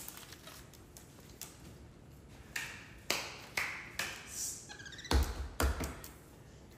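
Taps and knocks of capuchin monkeys moving about on a stone kitchen counter, with a short high squeak and then two heavier thuds about five seconds in.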